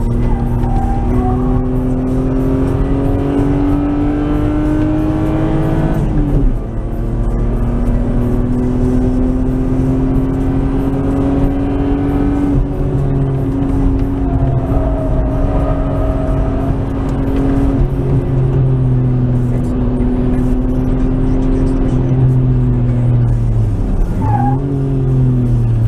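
Nissan Skyline R33's RB20E 2.0-litre single-cam straight-six, heard from inside the car, running hard on track. It climbs in pitch, drops sharply at an upshift about six seconds in, and climbs again. It then holds fairly steady and drops off near the end as the driver lifts off.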